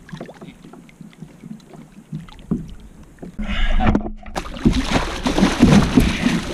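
Soft water lapping and small knocks against a kayak hull. About four seconds in, the water bursts into loud, churning splashing as a large roosterfish thrashes at the surface beside the kayak.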